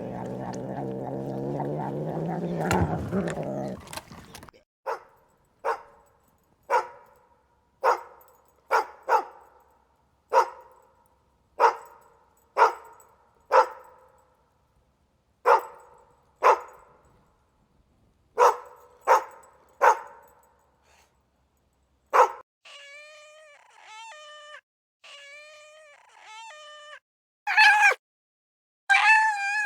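A dog barking repeatedly, single sharp barks about one a second, after a long low sound lasting about four seconds at the start. Near the end come several higher, wavering drawn-out calls.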